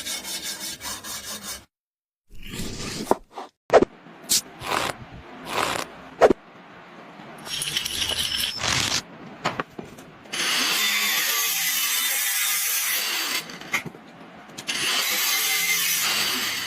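Workshop power-tool noise in a string of short, abruptly cut clips: a fast rhythmic rasping at the start, a few sharp knocks and clicks, then two long stretches of steady hissing noise from about ten seconds in.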